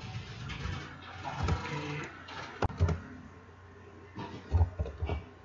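Computer keyboard keystrokes, several separate key strikes with pauses between them, as output is paged through and a command is typed.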